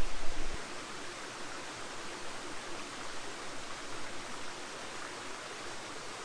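Steady rushing of a nearby stream, an even hiss of running water, with a brief low rumble in the first half second.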